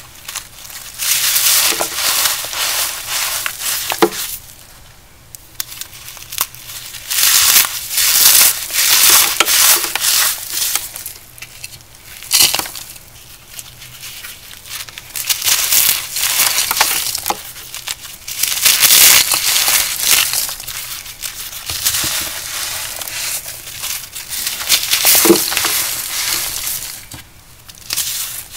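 A compacted powder block, cornstarch or gym chalk, being crushed and crumbled. It comes in repeated crunchy spells of a second or a few seconds, with short quieter pauses between.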